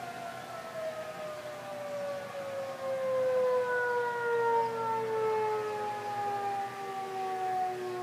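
Outdoor tornado warning siren, its single tone sliding slowly and steadily lower as the siren winds down.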